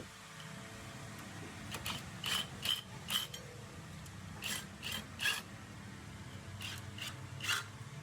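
Ratchet wrench clicking in three short runs of about three strokes each, over a steady low hum, as bolts are worked on the AC compressor's mounting bracket.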